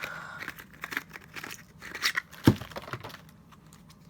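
Plastic packaging crinkling and rustling as a puzzle cube is taken out of its box, with a sharp knock about two and a half seconds in; the handling thins out to a few faint clicks near the end.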